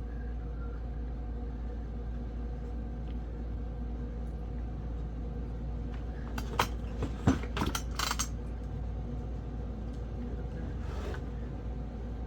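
A short run of sharp metallic clicks and clinks from work on a chainsaw's top end, about halfway through, over a steady low hum.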